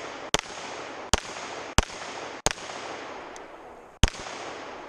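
Handgun fired five times in a timed string, shots roughly 0.7 s apart with a longer pause before the last, each shot trailing off in echo.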